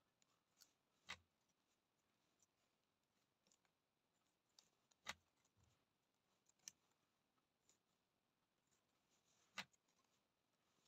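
Faint handling sounds of net-making: light clicks and rubs as a netting needle and mesh gauge are worked through nylon twine. Four sharper clicks stand out, spread a few seconds apart.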